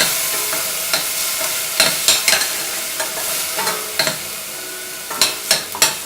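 Ground pepper, cumin, garlic and tomato paste sizzling in hot oil in a pan while a spoon stirs it, scraping and knocking against the pan now and then. This is the short sauté that cooks off the masala's raw smell.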